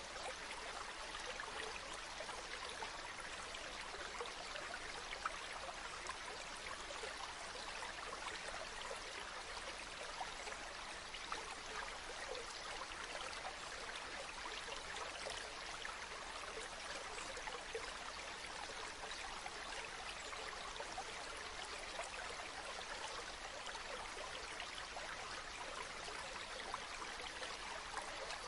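Steady flowing water, with fine trickling and splashing and no break or change.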